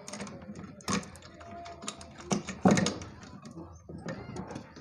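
Plastic wire connectors being unplugged from a Polytron PAS 69 active speaker's amplifier board as the board is handled: scattered clicks and knocks, the loudest a little under three seconds in.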